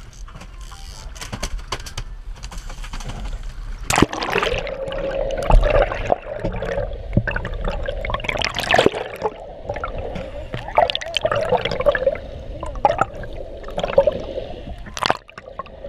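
Water sloshing and gurgling around an action camera held underwater, heard muffled through its housing. It starts with a splash about four seconds in, followed by a run of sharp clicks and pops and a steady hum underneath.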